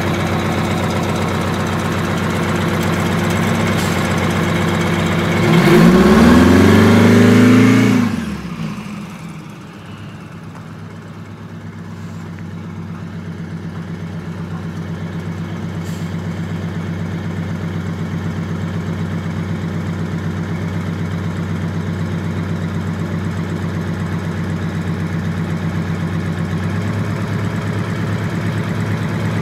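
Scenicruiser bus's Detroit Diesel 8V92TA two-stroke V8 diesel idling, then revving up and back down for about two seconds as the bus pulls away. The engine sound then drops off sharply and comes back steady, slowly getting louder as it runs on down the lane.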